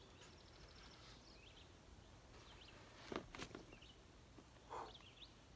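Near silence: faint outdoor ambience with scattered distant bird chirps, and a couple of soft knocks a little after three seconds in.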